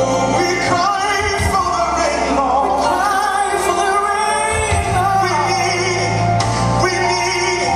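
Worship song playing: sung vocals with wavering held notes over a steady bass and band accompaniment.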